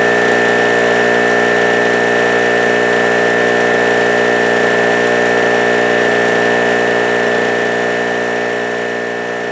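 Harbor Freight Storm Cat 700/900-watt generator's 63cc two-stroke engine running at a steady speed, an even drone with a steady high tone over it, growing slightly quieter over the last couple of seconds.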